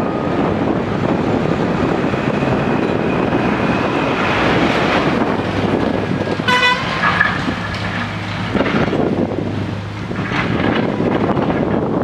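Case backhoe loader's engine running as it digs, with road traffic passing; a vehicle horn gives a short toot about halfway through.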